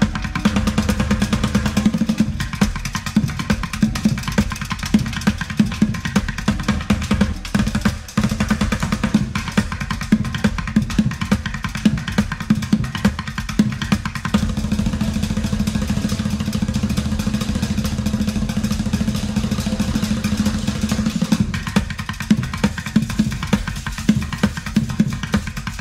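Background music with a steady drum-kit beat, its level dipping briefly about eight seconds in.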